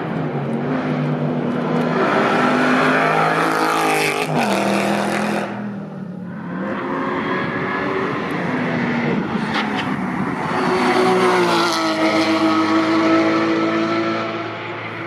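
Racing cars driving past on a circuit at high revs, the engine pitch stepping and sliding with gear changes. One car passes in the first few seconds and fades out about six seconds in, then a second swells up and passes around eleven to thirteen seconds in.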